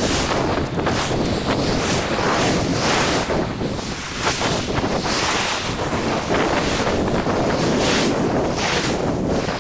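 Wind buffeting the microphone in irregular gusts over surf breaking and washing up a stony beach.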